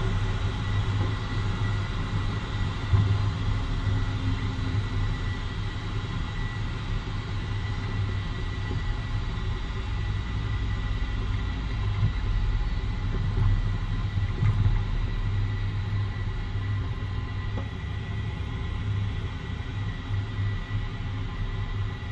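2013 Jeep Wrangler Unlimited being driven: a steady low rumble of engine and road noise, with a brief louder bump about three seconds in.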